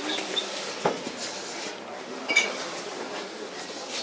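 A couple of sharp clinks of hard objects knocking together, the louder one about two and a half seconds in with a brief ringing tone, over steady indoor background noise.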